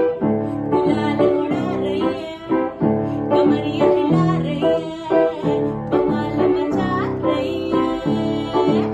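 Upright piano playing chords and melody, with a voice singing along.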